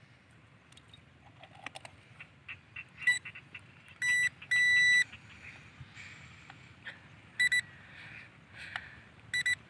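Electronic beeps from a toy quadcopter's handheld remote controller, typical of switching on and pairing with the drone: a short beep about three seconds in, two longer beeps between four and five seconds, then short beeps near seven and a half seconds and again near the end. Faint small clicks fall between them.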